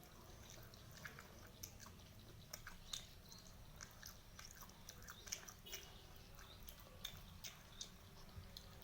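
A person chewing and biting spicy fried chicken: faint, with many small wet mouth clicks scattered throughout.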